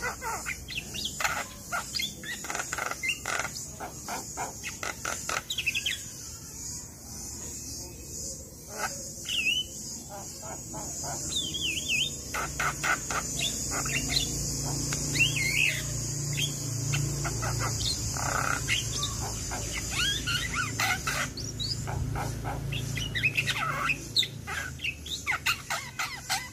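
Javan myna (jalak kebo) singing a long varied run of harsh chatter, quick clicks and short whistled glides.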